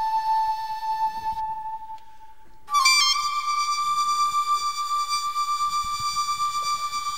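Closing music from a live stage performance recording: a flute-like wind instrument holds one long steady note that fades out about two and a half seconds in, then a second long note, a little higher, starts and is held.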